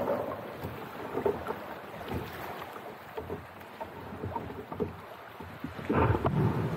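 Choppy water lapping and splashing against a fishing kayak's hull, with wind on the microphone; the splashing gets louder near the end.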